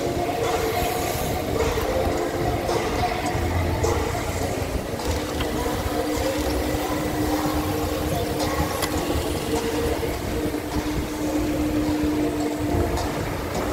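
Steady road traffic and riding noise, with low steady hums running through it.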